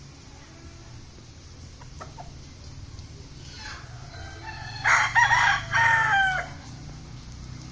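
Rooster crowing once, loud, about five seconds in, the crow breaking into two parts with the last note falling away. Faint clucking comes before it.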